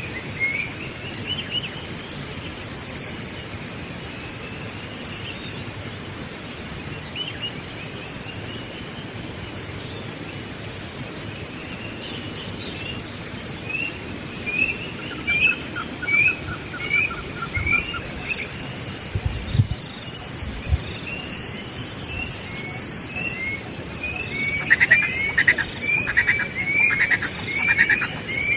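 Wild birds calling, mostly short, quick, rising chirps repeated over and over, over a steady high-pitched insect whine. A short fast trill comes about halfway through, and a couple of dull low thumps follow soon after. Near the end the calls grow denser and louder.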